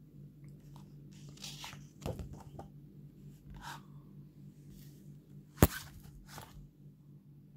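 Pages of a hardcover picture book being turned and handled: soft paper rustles and crackles, with one sharp knock of the hard cover about three quarters of the way through.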